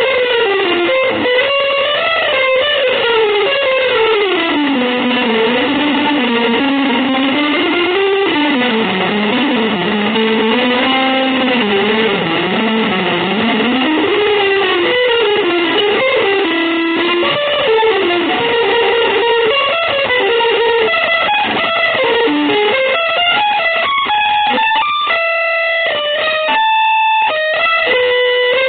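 Electric guitar playing free, avant-garde improvised music, a dense line that wanders up and down in pitch, ending in a few held notes broken by short gaps.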